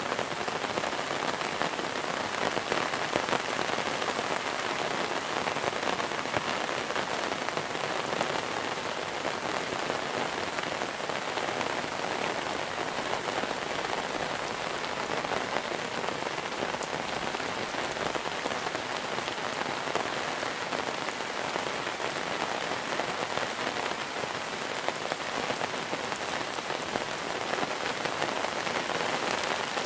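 Steady monsoon rain falling on surfaces: an even, unbroken patter of countless drops.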